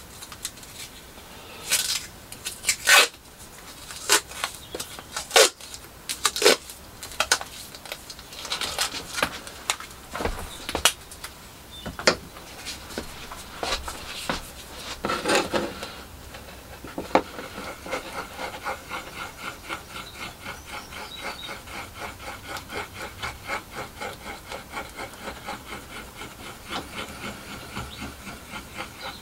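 Masking tape pulled off its roll and wrapped round a bundle of wooden coffee stirrers, with sharp rips and clicks. From about halfway, quick, even scraping strokes of the stirrer spatula on a plywood offcut: two-part rapid epoxy being mixed.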